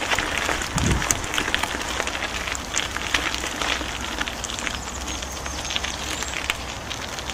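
Mountain bike tyres rolling over a gravel path: a steady crackle of grit with many small clicks and rattles, over a low wind rumble on the microphone. There is a dull bump about a second in.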